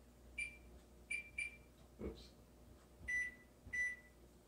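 Electric wall oven's keypad beeping as its buttons are pressed to set the timer: five short beeps, the last two a little lower and longer than the first three, with a soft knock about two seconds in.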